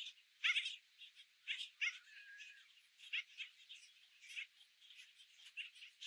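Black skimmer chicks giving short, high begging calls in an irregular run, with one longer held note about two seconds in.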